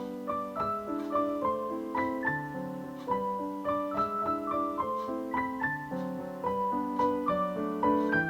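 Background music: a gentle solo piano tune, single melody notes a few times a second over soft chords.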